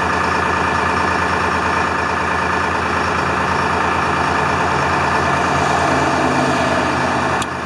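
A 1976 International fire truck's Detroit Diesel engine idling steadily, running to build up air pressure for the air horns.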